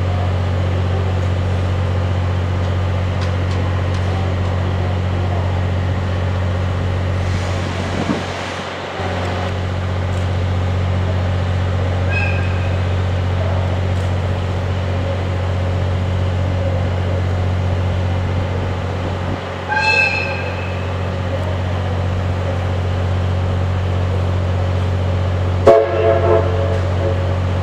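JNR Class C11 steam locomotive standing on a turntable: a steady low hum under the constant hiss of steam escaping from the cylinder drain cocks. The steam whistle gives a short toot about twelve seconds in, another about twenty seconds in, and a louder blast near the end.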